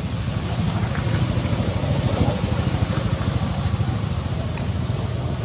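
An engine running steadily: a low, even rumble with a fast flutter, under a broad hiss.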